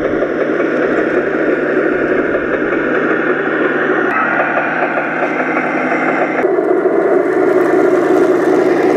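Radio-controlled model IS-2 tank driving over dirt and gravel: a steady whir from its drive motors and tracks. The tone changes abruptly about four seconds in and again about six and a half seconds in.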